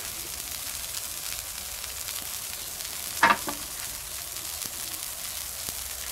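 Food sizzling steadily on a hot steel fire-plate griddle, with a single sharp knock about three seconds in.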